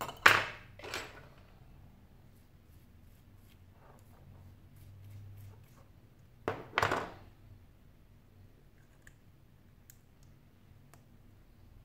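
Handling noise from smartphone repair parts being moved and set down by hand: two short knocks right at the start, another pair about six and a half seconds in, and faint small clicks in between.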